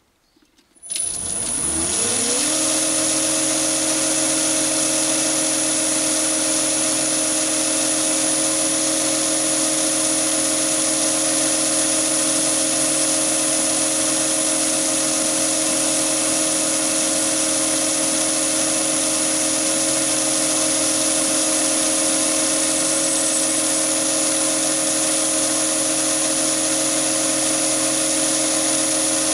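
Chinese mini lathe starting up about a second in, its pitch rising as the spindle comes up to speed, then running steadily at 760 rpm with a high whine and a steady gear hum. It is under a light boring cut in 316 stainless steel from a small solid carbide boring bar.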